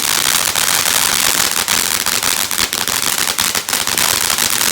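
Ground fountain firework spraying with a steady hiss and dense, rapid crackling pops, like popcorn popping.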